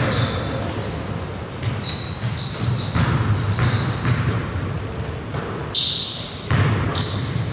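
Basketball being played on a hardwood gym floor: the ball bouncing and sneakers squeaking in short, high chirps again and again, with a few heavier thuds.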